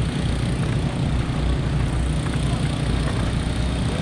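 Go-kart engine idling with a steady low rumble while the kart creeps forward, heard from onboard the kart.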